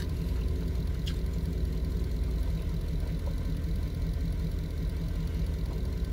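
Truck engine idling, heard from inside the cab: a steady low rumble, with one faint click about a second in.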